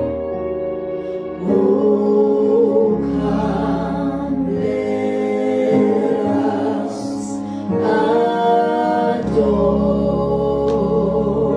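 Gospel praise and worship music: singing voices over sustained keyboard chords and a bass line that moves to a new note every couple of seconds.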